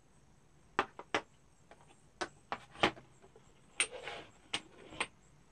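Small amber beard-oil bottles being handled in and out of a cardboard box: about ten sharp clicks and knocks as the bottles tap against each other and the box, with a brief scrape of the packaging a little before 4 s.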